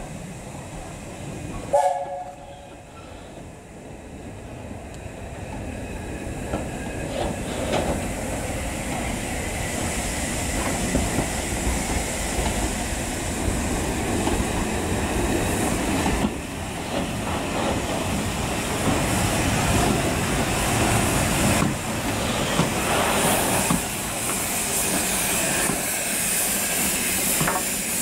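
BR Standard Class 4MT 2-6-0 steam locomotive running light, tender first, rumbling and clattering over the rails and growing louder as it approaches. There is a brief whistle blast about two seconds in, and a steam hiss rises near the end.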